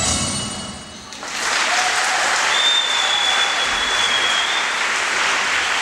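Music ends in the first second, then an audience breaks into applause. One long high whistle rings out over the clapping in the middle of it.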